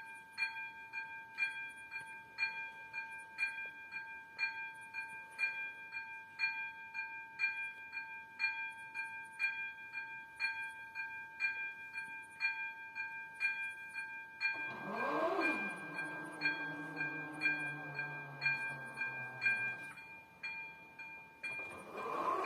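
Railway level-crossing warning bell ringing steadily, about two strokes a second. About two-thirds of the way in, a barrier drive motor starts with a gliding hum and runs steadily for several seconds as the far barrier arm lowers; near the end a second barrier motor starts as the near arm begins to come down.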